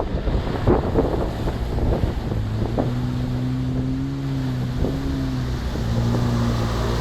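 UAZ off-roader's engine running at a steady pitch, heard clearly from about two seconds in, with wind buffeting the microphone.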